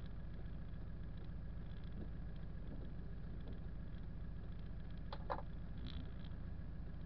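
Car engine idling, a steady low hum heard from inside the cabin, with a couple of sharp clicks about five seconds in.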